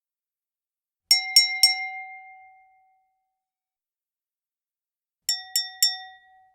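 A wine glass tapped three times in quick succession, ringing out for a second or so, then three more quick taps near the end: the clinking signal that calls a room to attention for a toast.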